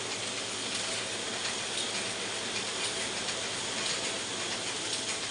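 Ryobi 3302H two-colour offset printing press running at full speed: a steady mechanical clatter and hiss with faint clicks.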